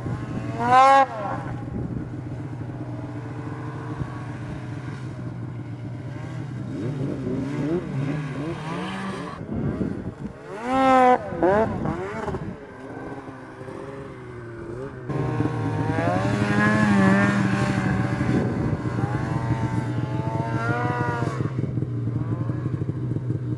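Snowmobile engines revving up and easing off again and again. There are sharp revs about a second in and again around eleven seconds, and a longer run at high revs in the last third.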